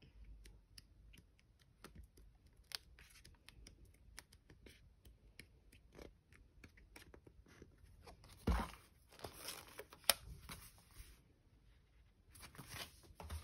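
Pages of a paper sticker book flicking over one after another, faint short flicks at an uneven pace. From about eight seconds in there is louder paper-and-card rustling and crackling as the pack is handled, with more near the end.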